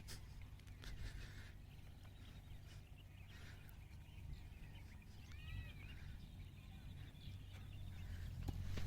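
Faint outdoor ambience: a steady low rumble, with a bird chirping briefly about halfway through.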